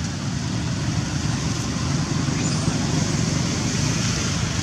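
Steady background rumble like road traffic, with a faint high hiss above it.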